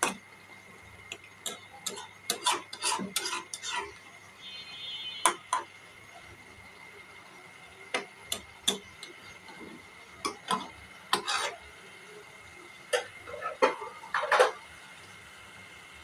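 Spoon scraping and clinking against a cooking pot in irregular strokes, in short bursts with pauses between them.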